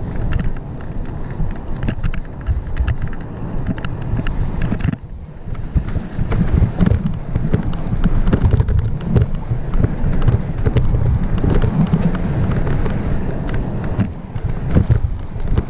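Wind buffeting a helmet-mounted microphone as a full-suspension mountain bike runs fast down a rough dirt trail, tyres rumbling and the chain and frame rattling in quick clicks. The noise drops away briefly about five seconds in, then picks up again.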